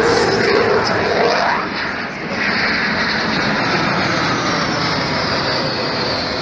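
Military aircraft flying past, with the Airbus A400M's four turboprop engines and the Eurofighter Typhoon's jet engines making a steady, loud noise. In the first second and a half a tone glides upward, and in the second half a high whine falls slowly in pitch as they pass.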